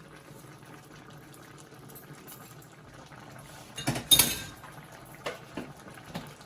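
Sauce simmering and bubbling in a pot on the stove, with a loud clatter of a utensil against the pot about four seconds in and a few lighter clinks after.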